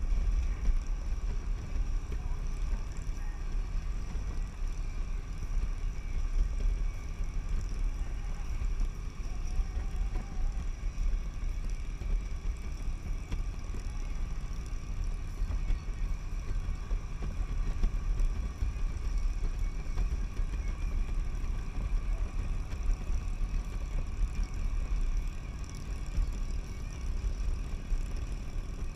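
Wind rush buffeting a helmet-mounted camera's microphone at road speed on a Harley-Davidson touring motorcycle, over the low, steady drone of its engine.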